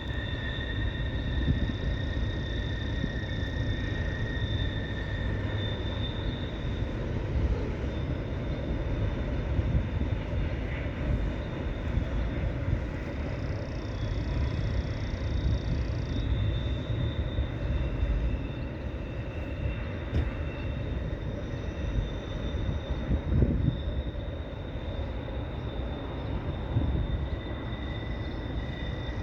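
Long freight train rolling past: a steady rumble of wheels on rails, with thin high steady tones ringing over it.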